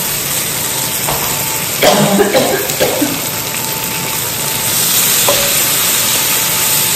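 Sliced calabresa sausage and onion sizzling steadily as they fry in a pressure-cooker pot, stirred with a wooden spoon, with a brief clatter of knocks and scrapes against the pot about two seconds in.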